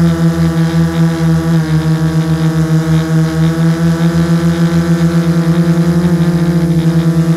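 Hexacopter's six brushless motors (LD-Power MT3110, 10x4.5 propellers) hovering, heard from on board: a steady hum with a pulsing beat that quickens toward the end. The pitch drops slightly about two seconds in.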